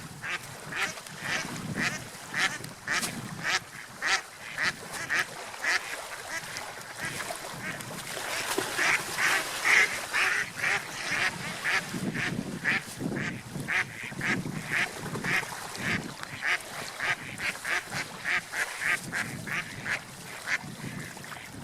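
Duck quacking over and over in short, rapid calls, about two or three a second.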